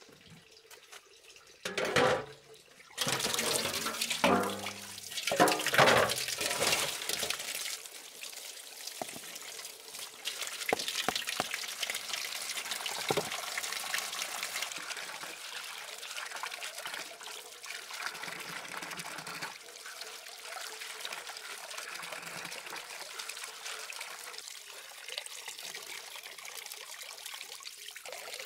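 Tap water running into a metal basin. It starts loud and sudden about three seconds in, then settles into a steady splashing as the basin fills and leaves are moved about in it.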